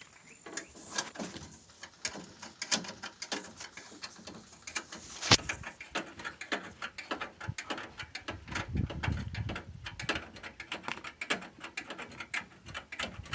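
Irregular clicks and knocks of tools and parts being handled while an engine is dismantled, with one sharp knock about five seconds in and a low rumble for a second or two near the middle.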